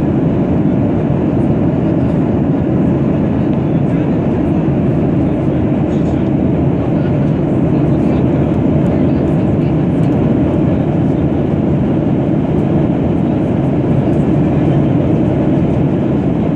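Steady cabin noise of an airliner in cruise flight: an even, unchanging low rumble of engines and rushing air, heard from inside the passenger cabin.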